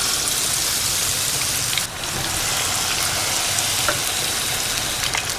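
Battered trevally fillets sizzling in hot shallow oil in a frying pan: a steady crackling hiss that dips briefly about two seconds in.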